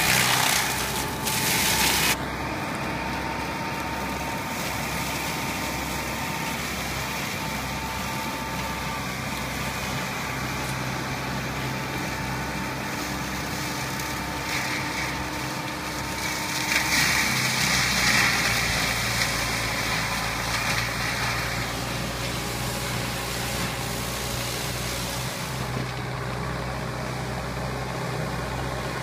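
Farm tractor's diesel engine running steadily under load, driving a PTO-powered forestry mulcher whose rotor shreds brush and small trees. The shredding gets louder and harsher in the first couple of seconds and again for a few seconds past the middle.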